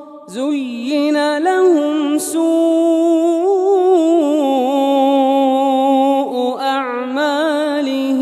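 A man reciting the Quran aloud in melodic tajwid, drawing out long held notes with wavering ornaments, after a short breath at the start.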